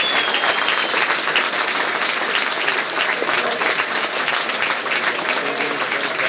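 Crowd of supporters applauding steadily, many hands clapping together.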